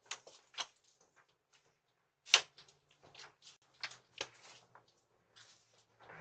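A scattered series of sharp clicks and knocks at an uneven pace, the loudest a single knock about two and a half seconds in.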